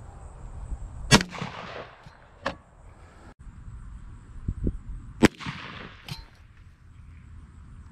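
12-gauge Remington 870 pump shotgun firing slugs at a pumpkin: two loud blasts about four seconds apart, each with a ringing tail and a shorter sharp crack about a second after it.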